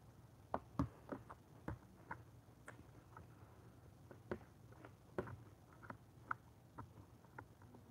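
Metal spoon clicking and scraping in a clear plastic container during eating, with small mouth sounds: soft, irregular taps, two or three a second.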